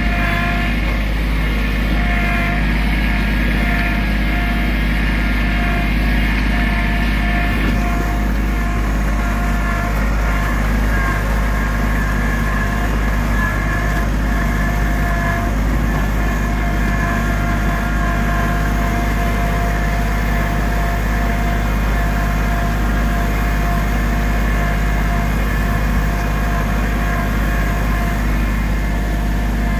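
Compact front-loader tractor's engine running steadily as the tractor drives along, at an even, unbroken level.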